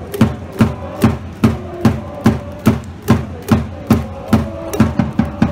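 Cheering section's drum beating a steady rhythm, about two and a half beats a second.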